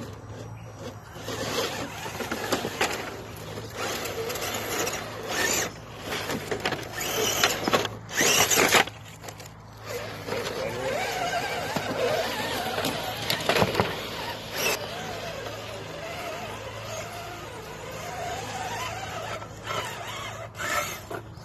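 Electric motors and geared drivetrains of radio-controlled rock crawlers whining, the pitch rising and falling with the throttle as they crawl. In the first half the whine is broken by loud bursts of scraping and crunching from the tyres on tarp and rock.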